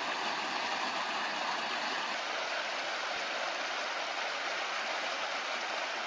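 Small waterfall on a rocky stream: water splashing and rushing, steady throughout.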